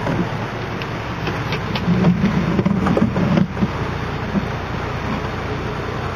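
Steady vehicle rumble with road noise, swelling for a second or so in the middle with a few sharp rattles.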